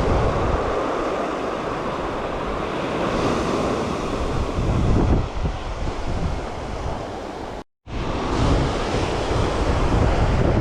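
Surf washing on a beach with wind buffeting the microphone, a steady rushing noise that cuts out for a moment about eight seconds in.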